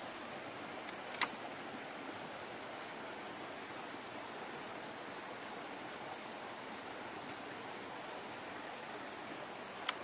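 Steady rushing outdoor background noise, with one sharp click about a second in and another just before the end.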